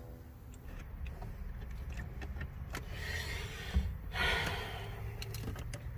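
Light metal clicks and scraping as a shifter mounting bolt is worked into its threaded hole by hand, over a low steady hum.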